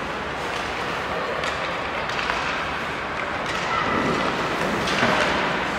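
Ice hockey practice on the rink: skates carving and scraping the ice as a steady hiss, with a few scattered knocks of sticks and pucks.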